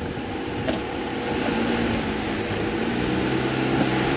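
Off-road truck engine running at low revs while the truck creeps over an obstacle. The engine pitch rises a little about a second and a half in and then holds. There is one short knock under a second in.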